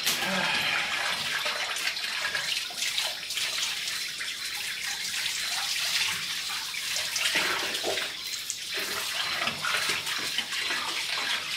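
Garden hose spraying water into the steel cooking chamber of a large cabinet smoker, a steady splashing rush as the water hits the grates and walls and rinses out the leftover gunk.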